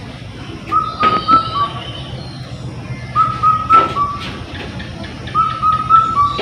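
A short whistled, bird-like phrase of four high notes, the last one lower, repeating about every two seconds over a low steady hum.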